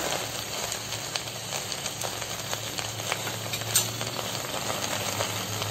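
Steady sizzling of chopped colocasia leaves, corn and peanuts frying over an oil tempering in a pressure cooker, with scattered small clicks and crackles.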